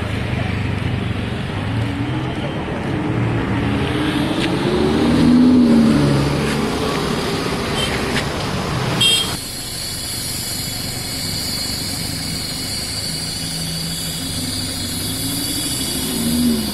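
Lamborghini Huracán V10 engine revving up and easing off in slow traffic, loudest about five seconds in. After a sudden cut, another Huracán's V10 runs steadily and climbs in pitch near the end.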